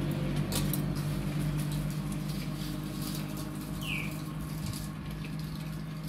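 A low engine hum fading steadily away, with a few faint clicks and one short, high, falling squeak about four seconds in.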